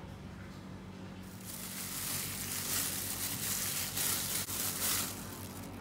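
A hand kneading and mixing ground chicken with flour and chopped onion in a ceramic bowl, an uneven rustling, crinkling noise starting about a second in and fading near the end. A low steady hum runs underneath.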